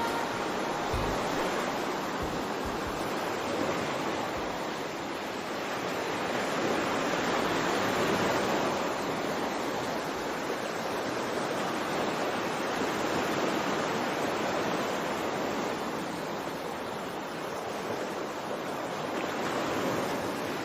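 Sea waves washing onto a shore: a steady rush of surf that slowly swells and ebbs over several seconds.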